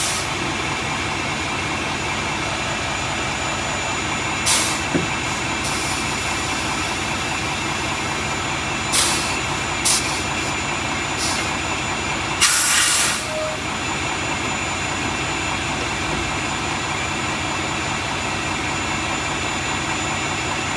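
Semi truck's diesel engine running steadily while the air system hisses in several short bursts, the longest lasting most of a second near the middle, as air pressure fills the rear suspension air bags.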